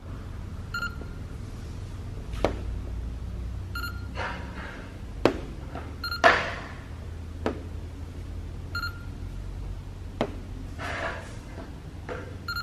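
PosiTector coating thickness gauge giving a short beep each time it takes a paint-depth reading, five beeps about three seconds apart. A few sharp clicks fall between them over a low steady hum.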